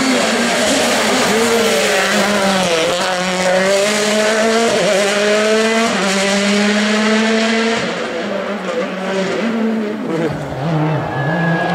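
Hyundai i20 WRC rally car's 1.6-litre turbocharged four-cylinder engine at full throttle. The engine note climbs and breaks at several gear changes, then grows quieter near the end as the car drives away.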